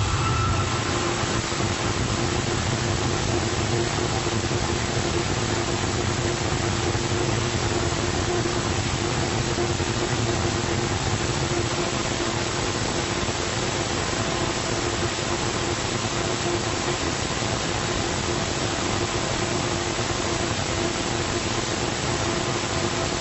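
Small test rocket engine with a 3D-printed nozzle firing continuously: a steady roar with a constant hum running through it.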